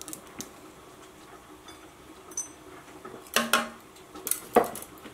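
Metal melon-baller scoop knocking and clinking against a plate and plastic cutting board while quince cores and seeds are scraped out: a few light taps early, then a cluster of louder knocks past the middle.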